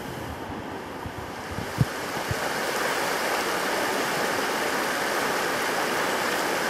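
Rustling with a couple of short knocks as gear is handled, then, from about a third of the way in, a shallow rocky mountain creek rushing steadily.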